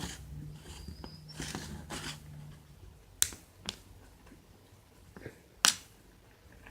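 Three sharp clicks, about three seconds in, half a second later, and near the end, over a faint low hum that stops a little before the first click.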